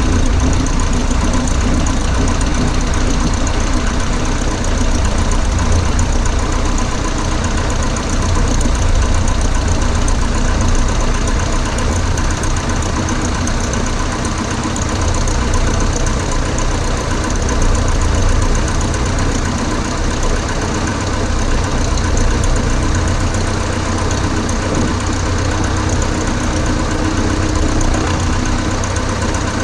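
Cessna 140A's light-aircraft piston engine and propeller droning steadily in flight, heard from inside the cockpit.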